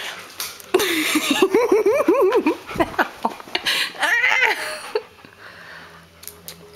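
A person laughing: a run of high, quick giggles for about two seconds, then a shorter laugh a little later. After about five seconds it drops to a few faint clicks and rustles.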